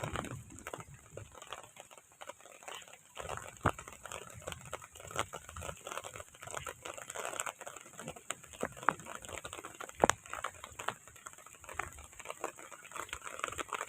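Heavy rain falling, an irregular patter of drops with occasional sharper taps close by.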